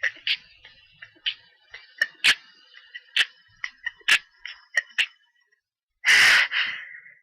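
A person with a cat allergy makes a rapid run of short, sharp clicks and sniffs for about five seconds, then lets out one loud sneeze about six seconds in.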